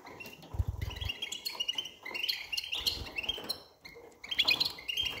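Young European goldfinches chirping: rapid, repeated short twittering calls, with a brief low rumble about half a second in.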